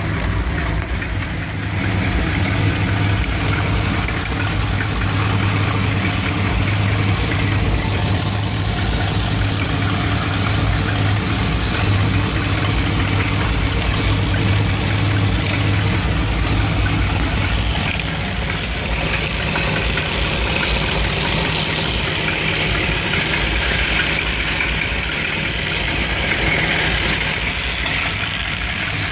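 Mopar 360 small-block V8 with a two-barrel carburettor, in a 1975 Dodge B200 Tradesman van, idling roughly once warmed up. The rough idle is a fault that a new ignition coil has not cured.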